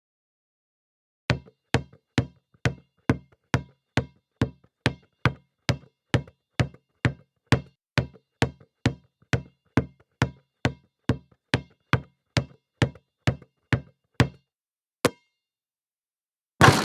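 A basketball dribbled on a hard floor: about thirty steady bounces at roughly two and a half a second, then a pause and one last bounce. Right at the end comes a louder hit that rings on.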